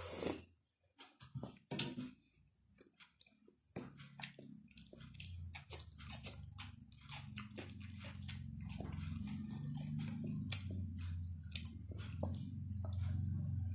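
Close-miked chewing and eating sounds: wet mouth clicks and smacks as a person chews noodles and other food. From about four seconds in, a low steady hum runs underneath.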